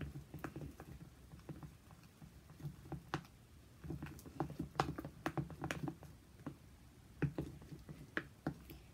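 A metal spoon stirring a glue and shaving-foam slime mixture in a plastic bowl: irregular light clicks and taps of the spoon against the bowl, several a second.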